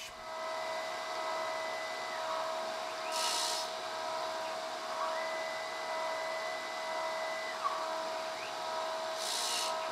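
Surface grinder running steadily, its spindle motor giving a constant hum and whine with a higher tone that comes and goes, as the wheel grinds a Damascus steel plate flat. Two short hissing passes of the wheel across the steel, about three seconds in and near the end.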